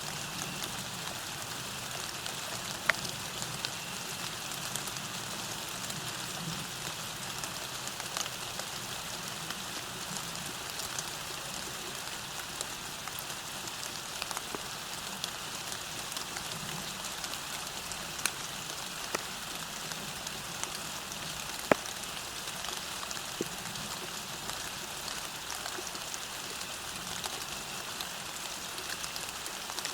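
Steady rain falling on the ground, a constant hiss with scattered louder drops ticking, a few of them sharp near 3, 18 and 22 seconds in.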